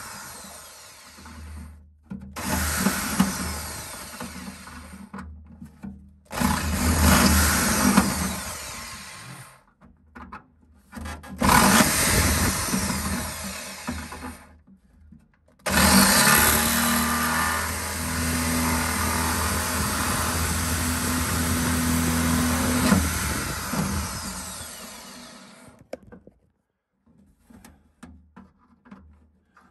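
Electric drill boring into a tiled wall in about five bursts of a few seconds each, the motor's hum under the grinding noise; the last and longest burst runs about seven seconds before the drill winds down and stops.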